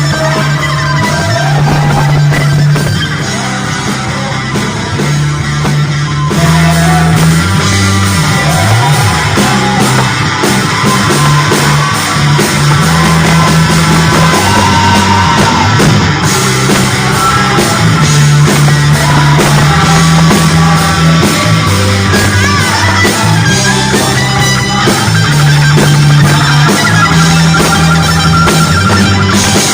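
Rock-style band music: a guitar playing a lead line with bending notes over steady, sustained bass notes.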